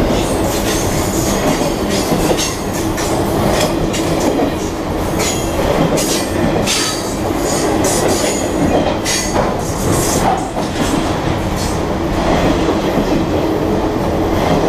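Freight train cars (boxcars and autoracks) passing close at speed: a steady rumble of steel wheels on rail, with clatter over the rail joints and repeated short, high metallic squeals from the wheels.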